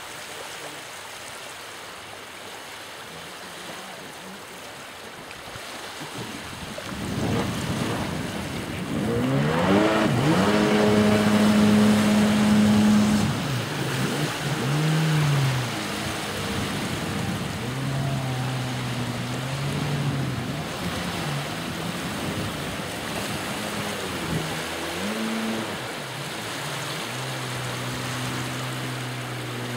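Jet ski engine, faint water and air noise at first, then revving up with a rising pitch about seven seconds in and running loudest for a few seconds as it pulls away across the water. Its pitch then rises and falls repeatedly as the throttle changes.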